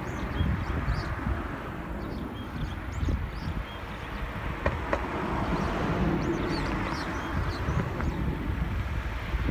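Gusty wind buffeting the microphone with a steady rushing noise, while small birds chirp in short high calls at intervals above it.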